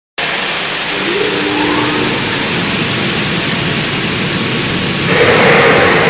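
Fruit and vegetable washing machine running, its tank of water churning with bubbles in a steady loud rush that swells a little about five seconds in.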